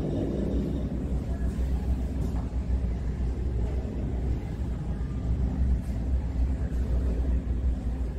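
Steady low rumble of the Thousand Sunny replica boat's engine, heard inside its cabin.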